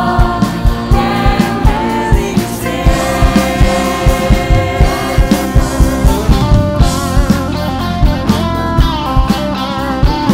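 A stage cast singing together live over a band, with guitar and a steady, driving drum beat.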